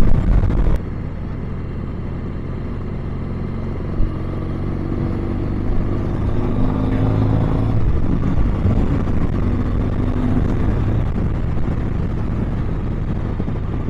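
Triumph Bonneville T100 sidecar outfit's 865 cc parallel-twin engine running on the move. It eases back about a second in, then its note rises gradually as it pulls on. There is a single short knock about four seconds in.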